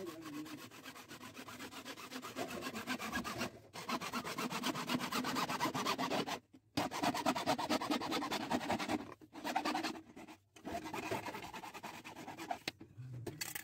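Hacksaw cutting through a large white PVC drain pipe by hand: quick back-and-forth sawing strokes, broken by a few short pauses, the longest about halfway through.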